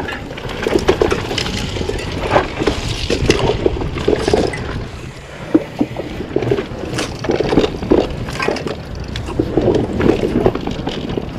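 Mountain bike riding over rough, rocky trail: a steady rushing noise with frequent knocks and rattles as the tyres hit rock and the bike shakes.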